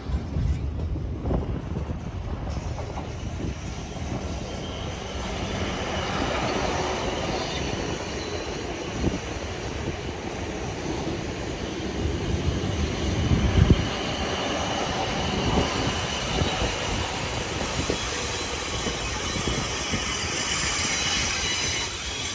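A train passing along the track: steady running noise with scattered knocks from the wheels, and a louder cluster of knocks a little past halfway.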